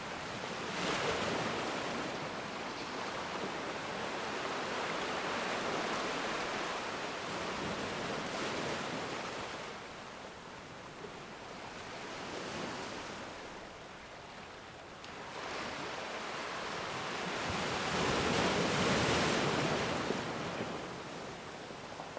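Ocean waves surging and washing in, rising and falling in slow swells several seconds apart, with the strongest surge near the end.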